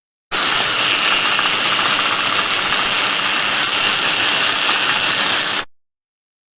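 Zoom sound effect: a steady, hissing mechanical whir that starts abruptly and cuts off after about five seconds.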